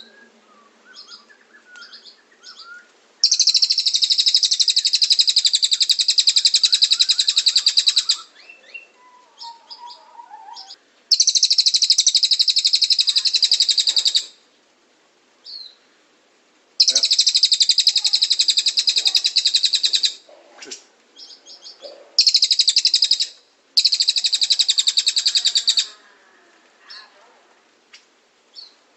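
Cililin (pygmy bushtit) giving loud, rapid, high-pitched trills in bursts of a few seconds each, five times, with soft short chirps in between.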